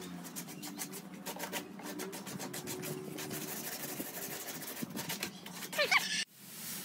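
Sandpaper rubbed by hand over wood, in repeated short strokes. Near the end comes a brief, louder rising squeak, then the sound cuts off suddenly.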